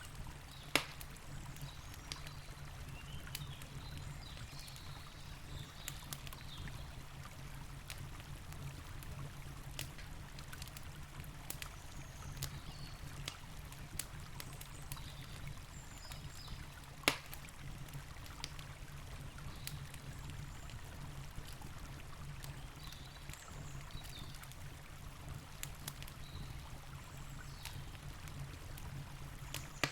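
Campfire crackling with scattered small clicks and two louder pops, one about a second in and one a little past halfway, over the steady low rush of a river.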